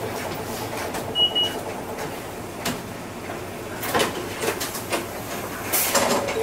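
Cabin running sound of a Hino Rainbow II medium-size non-step bus on the move: steady diesel engine and road noise, with rattles and knocks from the bodywork several times and a brief high squeak about a second in.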